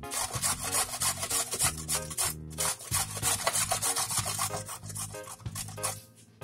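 A carrot being grated on a metal box grater: quick, repeated rasping strokes, about three a second, that stop near the end. Background music with low sustained notes plays underneath.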